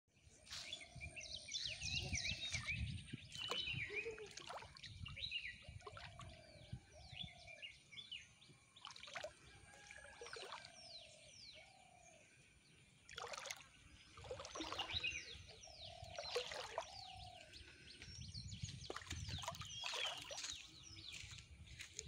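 Several birds calling together: many quick falling chirps high up and a lower call of short notes repeated in series, over a low rumble and a few splashes of water.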